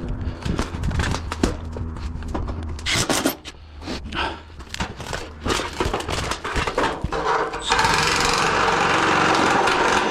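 Sharp clicks and knocks of work on metal roofing panels. About eight seconds in, a loud steady noise starts and runs on.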